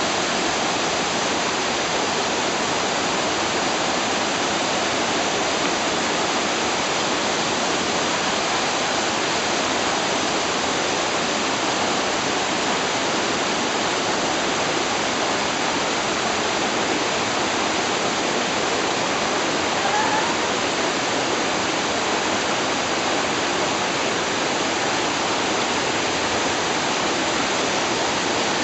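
Mototaki waterfall, spring water from Mt. Chokai's underground flow pouring down the rock face, a steady, unbroken rush of falling water.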